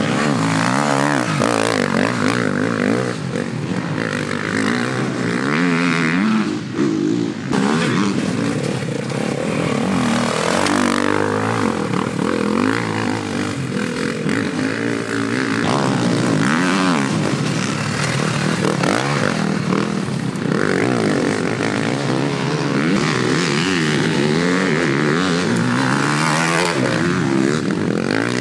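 Enduro dirt bike engines revving hard and easing off as riders power their rear wheels through deep mud, one bike after another, the engine pitch climbing and dropping again and again.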